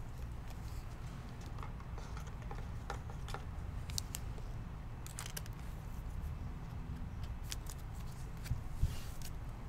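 Faint handling noises: scattered soft clicks and light rustles in a few clusters, over a low steady hum.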